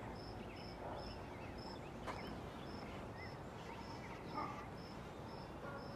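Faint outdoor ambience: a short, high-pitched insect chirp repeating steadily about twice a second, with a few softer, lower chirps in between.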